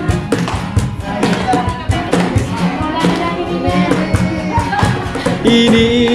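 Music of a Tagalog praise-and-worship song between sung lines: an instrumental passage over a steady beat, with a held note coming in near the end.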